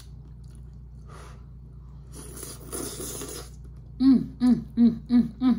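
A woman slurping a mouthful of spicy instant noodles, a hissing suck of air for about a second. From about four seconds in comes a quick run of six short hummed "mm" sounds with her mouth full, each dropping in pitch.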